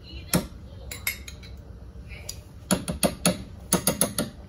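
Large metal spoon knocking and clinking against a nonstick saucepan while stirring onions in melted butter: a single knock about a third of a second in, a couple near one second, then a quick run of knocks from just under three seconds to just past four.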